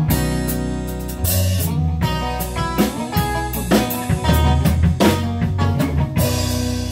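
Live band playing an instrumental passage: electric guitars, bass guitar and drum kit, with the drums striking steadily under a strong bass line.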